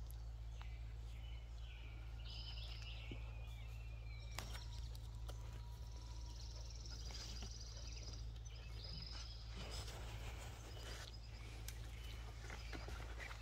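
Dogs clambering over a pile of logs and dead branches, with scattered twig snaps and rustles, over a steady low rumble. Short bird calls and trills come and go throughout.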